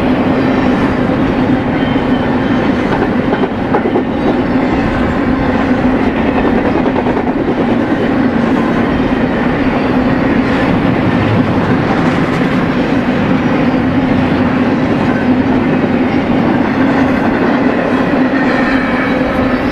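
BNSF double-stack intermodal well cars rolling past, steel wheels on rail making a steady, even rumble with a constant low hum under it.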